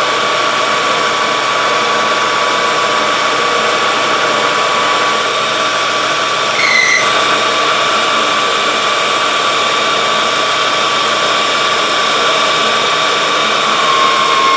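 Metal lathe running steadily with a whirring gear train and a held whine, as the turning tool takes a 40-thousandths depth of cut along a spinning metal bar. A brief high chirp about seven seconds in.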